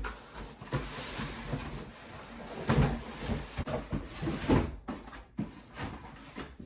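Rummaging through shoes and boxes in a closet: steady rustling and handling noise with knocks, two heavier thuds about three and four and a half seconds in.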